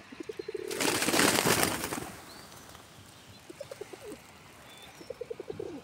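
Pigeons cooing: several short runs of low pulsing coos. About a second in, a loud rustling rush of noise lasts about a second.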